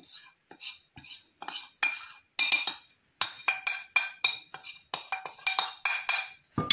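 A metal spoon scraping and tapping on a china plate as ground spices are pushed off into a glass bowl: a quick, uneven run of short clinks and scrapes, each with a brief ring.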